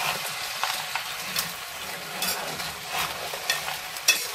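Blue crab pieces in their shells sizzling in hot oil in a large pan while a metal spoon stirs them, with irregular clicks and scrapes as the spoon and shells knock together.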